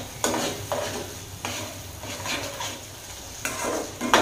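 A slotted spatula stirring and scraping thick onion-tomato masala gravy around a nonstick kadai in repeated, irregular strokes, with a sharper, louder stroke against the pan about four seconds in.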